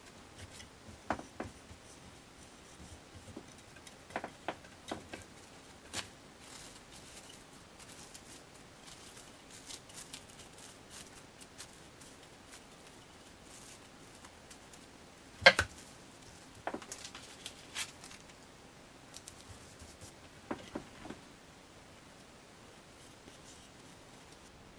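Plastic food film being pulled from its dispenser, cut and wrapped around a wooden cutting board: scattered short crinkles, rustles and taps, the sharpest about fifteen seconds in.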